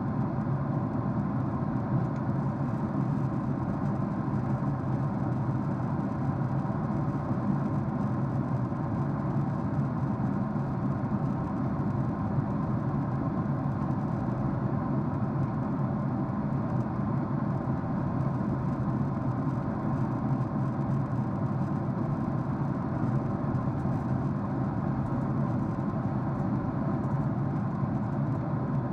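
Steady cabin noise of a jet airliner in flight, heard from inside the cabin: an even drone of engines and rushing air with a few steady low hum tones.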